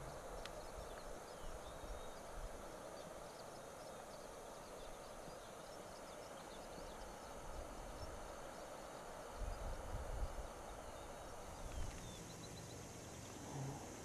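Faint prairie night ambience: a steady soft hiss with many faint, short, high chirps, and a few low rumbles about two-thirds of the way through.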